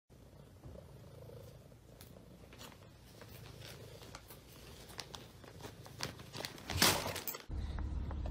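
Plastic bag crinkling and rustling as a cat noses into it: scattered short crackles, with a louder burst of crinkling about seven seconds in.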